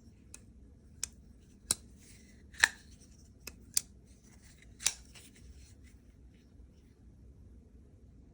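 Vosteed folding pocket knife clicking as its blade is flicked open and closed on the ball-bearing pivot and crossbar lock: about seven sharp metallic clicks at uneven spacing, the loudest about two and a half seconds in, with light handling rustle between them.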